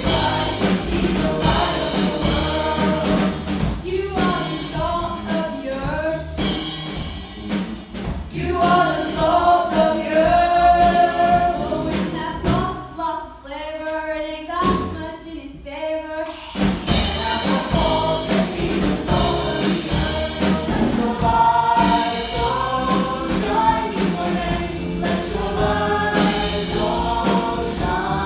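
Musical-theatre ensemble singing together as a chorus over a live band with drums. Around the middle the band drops away for a few seconds, leaving thinner singing, then the full sound comes back in.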